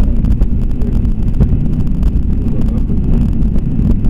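Cockpit noise of an MD-82 airliner during takeoff: a loud, steady low rumble of airflow and engines at takeoff thrust.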